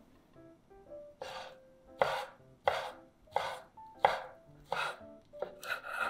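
Chef's knife slicing bacon on a wooden cutting board: a sharp chop against the board about every two-thirds of a second, starting about a second in, with a quicker run of cuts near the end.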